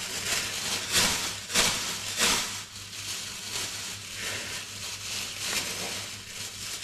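Clear plastic roasting sleeve crinkling and rustling as it is pulled and rubbed open by hand, with the loudest rustles in the first two and a half seconds and softer handling after.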